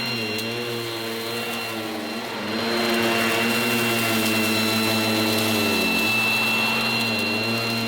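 Goblin Roto mains-powered handheld vacuum cleaner with revolving brush running, a steady high motor whine over a lower hum that wavers up and down in pitch. It gets louder about two and a half seconds in and drops back about six seconds in.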